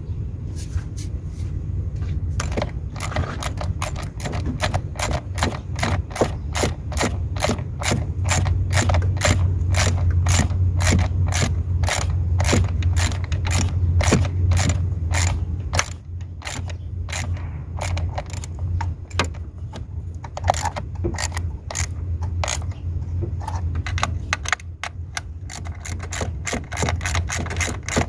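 Ratchet wrench clicking steadily, about two to three clicks a second, as bolts are turned while the EGR valve is fitted, with a steady low hum underneath.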